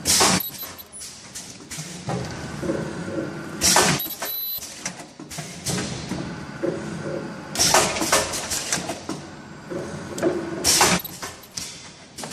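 Packaging machine running in its cycle, with a short, loud burst of hissing noise about every four seconds, four in all.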